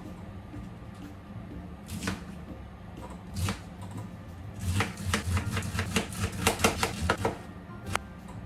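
Knife chopping cabbage on a cutting board: a few separate cuts, then a quick run of about five chops a second for a couple of seconds, and one last cut near the end.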